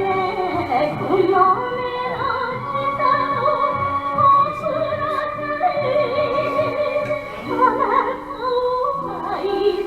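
Japanese enka music: a sustained melody with heavy vibrato over a steady accompaniment.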